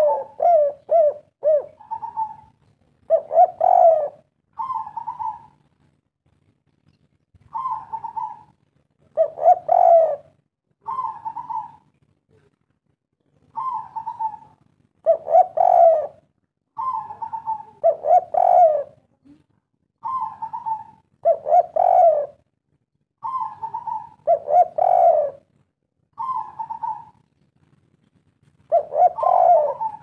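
Spotted dove (derkuku) cooing its three-note 'kuk 3' song over and over. Each phrase pairs a short higher note with a louder, lower, burry coo, repeated every second or two with brief pauses between runs.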